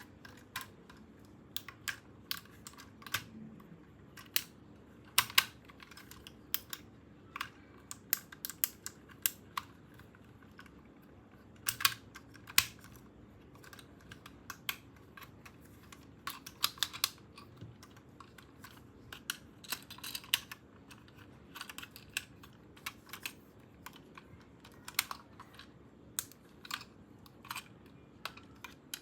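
Irregular light clicks and taps of hands handling small plastic toy parts and packaging, a few a second with brief pauses.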